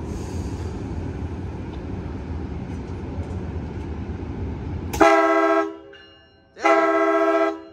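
Steady low rumble of the train at the platform, which breaks off suddenly about five seconds in. Then the Siemens SC44 Charger locomotive's multi-note air horn sounds two blasts, the second about a second long: the two-blast signal that the train is about to move off.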